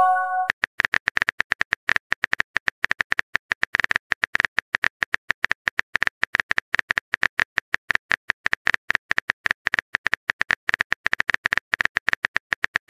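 Phone keyboard typing sound effect from a chat app: a long, even run of rapid key clicks, many per second, as a text message is composed. At the very start, the tail of a short message-sent chime.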